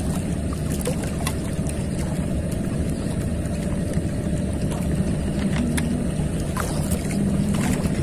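Motorboat engine running steadily on the river, a continuous low drone.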